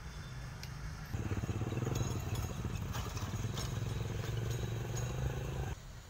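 Motorcycle engine running at a steady pitch. It cuts in about a second in and cuts off abruptly near the end.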